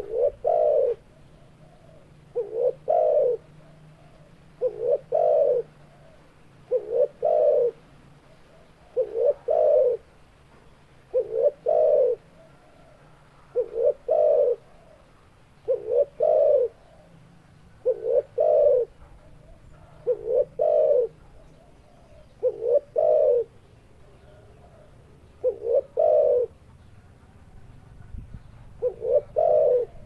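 Spotted dove cooing, a short phrase of low coos repeated about every two seconds, with one longer pause near the end.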